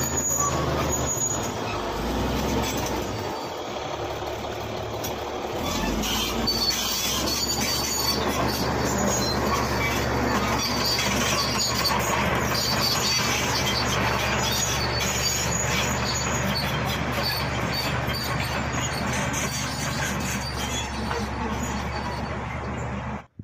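Shantui SD16 crawler bulldozer working, its diesel engine running steadily under load as it pushes soil and grass, with high squealing from the steel tracks and undercarriage. The sound cuts off abruptly just before the end.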